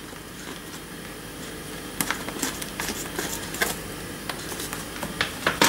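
Light handling noises of kitchen items: a faint steady hiss with a scatter of small clicks and knocks in the second half, a couple of them near the end.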